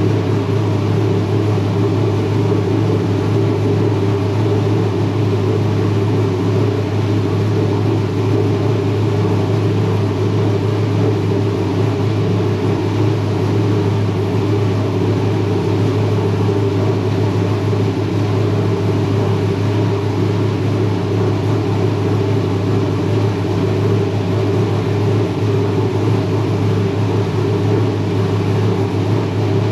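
A loud, steady machine drone that holds an even level throughout, with a deep hum and a lower-middle rumble.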